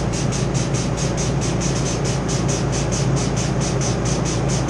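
Walk-in cooler refrigeration equipment running: a steady machine hum with an even, rapid pulsing of about five beats a second above it.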